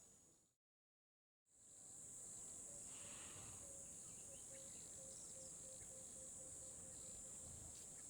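Faint, steady high-pitched insect chirring, like crickets, that drops out completely for about a second near the start.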